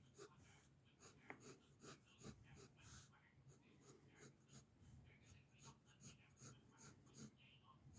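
Pencil sketching on paper: a steady run of short strokes, two or three a second.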